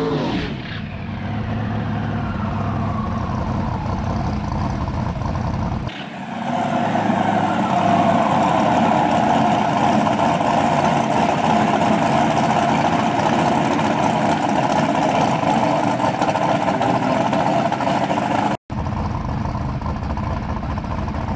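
Twin-turbo big-block Ford V8 of a Fox-body Mustang drag car running hard through a burnout, its pitch falling over the first few seconds. About six seconds in it turns to a louder, steady engine-and-spinning-tyre sound, broken by a brief dropout near the end.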